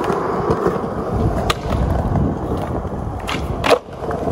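Skateboard wheels rolling over rough concrete, a steady rumble. A sharp clack comes about a second and a half in, and a louder one near the end.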